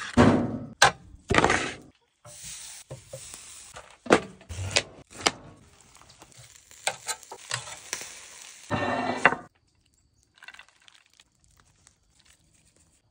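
A quick series of food-prep and grilling noises: short scrapes, rustles and sharp clanks and knocks, some from the metal lid of a portable tabletop grill. The sounds stop about three-quarters of the way through, leaving near silence with a few faint touches.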